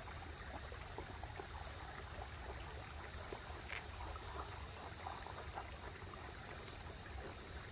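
Faint, steady trickling of river water at the bank, with a few faint small clicks.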